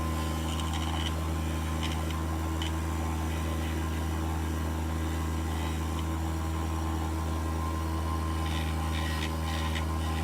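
Bench grinder motor running steadily with a low hum, with short scratching sounds now and then, near the start and again near the end, as a rusty brake caliper part is held against the grinder wheel to clean off surface rust.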